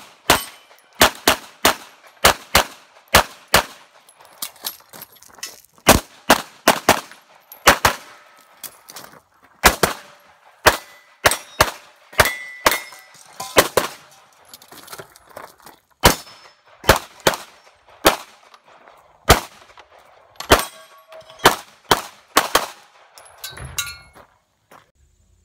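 Handgun fired in a USPSA stage run: sharp shots in quick pairs and strings, with pauses of one to two seconds between groups, stopping just before the end. Some hits ring on steel targets.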